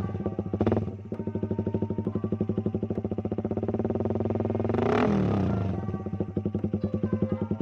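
Suzuki Raider 150's single-cylinder engine running through a Daeng open exhaust pipe, idling with a loud, pulsing exhaust note. It is blipped once just under a second in and revved up and back down around five seconds in.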